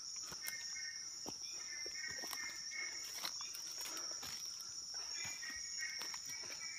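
Evening insect chorus: a continuous high-pitched trill, with intermittent lower chirping from other insects and scattered soft clicks and rustles.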